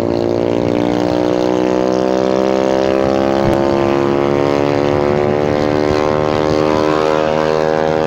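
Honda Forza 300 scooter's single-cylinder engine running under load, its drone rising slowly and steadily in pitch as the scooter gathers speed, over wind and road noise.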